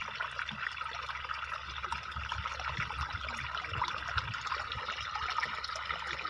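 Steady stream of water pouring from a solar irrigation pump's outlet pipe and splashing into a muddy puddle.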